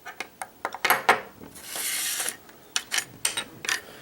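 Small metal parts of a Euro cylinder lock being handled as it is taken apart: a string of sharp light clicks and taps, with a short scraping slide about halfway through.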